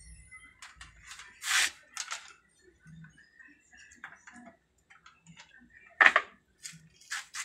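Scattered clicks and knocks of the opened TV's metal backlight panel and LED strips being handled, the loudest about six seconds in and another sharp one about a second and a half in.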